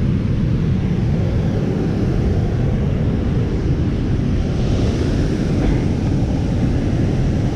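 Steady low rumbling noise of wind buffeting the microphone, over rushing river current below a dam spillway.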